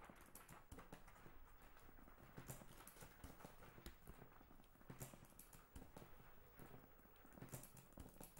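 Near silence with faint, irregular clicks and knocks.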